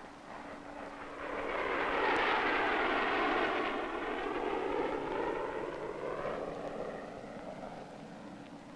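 A formation of early single-engine jet fighters passing overhead: a rushing jet roar swells over the first couple of seconds, peaks, then fades away slowly.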